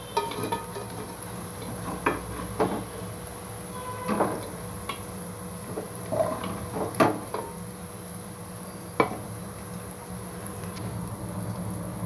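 A spoon knocking and scraping against a pot as diced potatoes are stirred and lifted out of hot frying oil, over a steady sizzle. The knocks come irregularly, about eight in all, the loudest a little past halfway.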